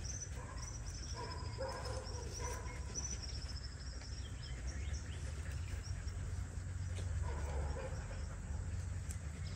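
Quiet outdoor background: a steady low rumble with birds chirping, the chirping clearest in the first three seconds, and a couple of faint clicks.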